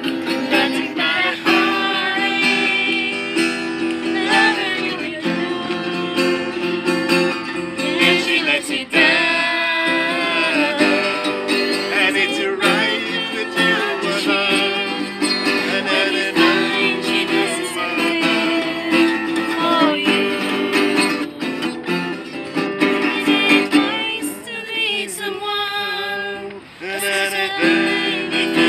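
Acoustic guitar played steadily, with singing over it.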